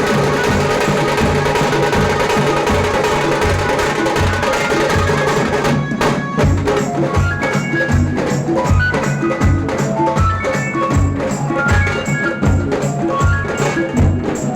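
A tasa drum band with dhol and Casio keyboard playing a film-song tune, with a fast driving drum beat. About six seconds in, the dense wash of sound thins out into sharp, evenly spaced drum strokes under short, separate keyboard notes.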